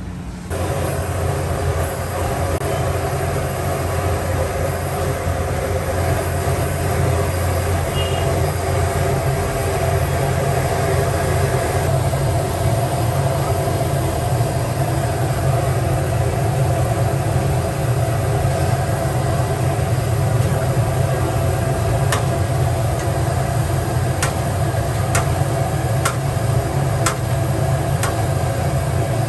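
Sabudana vadas deep-frying in a large kadhai of hot oil: a loud, steady, dense sizzle over a low rumble. In the last several seconds a metal skimmer gives a few sharp clicks against the pan.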